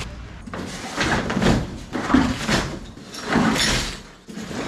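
Rubble and crushed stone rattling and crunching as a bucket of it is tipped out onto a floor of broken stone, with steps crunching through the rubble, in several noisy spells about a second apart.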